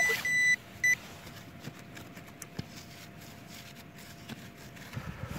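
Metal detector sounding over a buried target: three short, high beeps in the first second, then a faint steady tone for about four seconds while the target is pinpointed.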